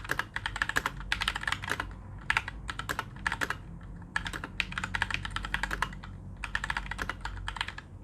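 Typing on a Keychron K2 low-profile mechanical keyboard with brown switches: rapid clicks of keystrokes in word-length bursts, with short pauses between them.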